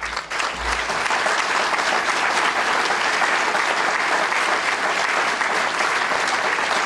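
Audience applauding: the clapping swells up within the first second and then holds steady.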